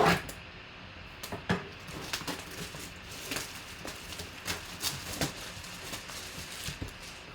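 Packaging being handled and opened: scattered rustles, crinkles and light clicks, loudest at the very start.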